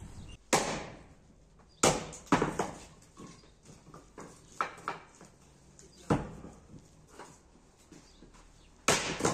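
Axe chopping birch rounds into firewood: about half a dozen sharp wooden chops at uneven intervals, with a few lighter knocks between them, the loudest a little under two seconds in, about six seconds in, and near the end.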